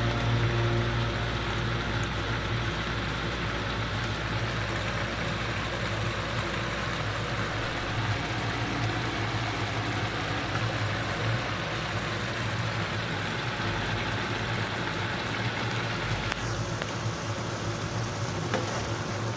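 Sweet potato glass noodles with shrimp and carrots simmering in sauce in a wok: a steady bubbling sizzle over a low hum.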